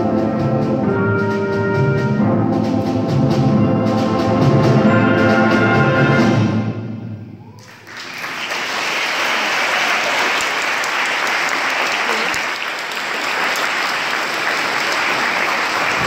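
High school concert band holding the closing chords of a piece, which die away about seven seconds in. Audience applause breaks out straight after and goes on.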